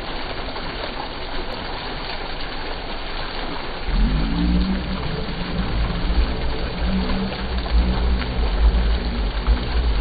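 Bell-shaped fountain jets pouring sheets of water into a shallow tiled pool: a steady splashing rush of falling water. From about four seconds in, a low rumble with a low hum joins it.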